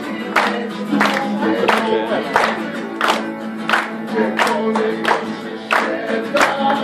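Live song: singing with a guitar, on a steady beat of sharp strokes about every two-thirds of a second.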